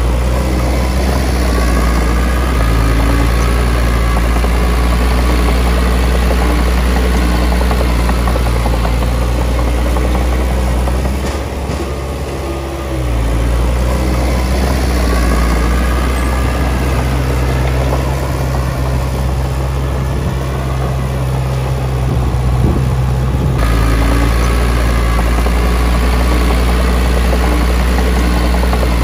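Komatsu D20P small crawler dozer's diesel engine running steadily as the dozer pushes a pile of soil. Its note shifts a few times, and its loudness dips briefly about eleven seconds in before picking up again.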